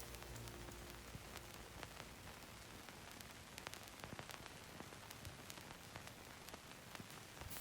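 Faint steady hiss with scattered soft crackles and clicks, like vinyl surface noise, and no music playing.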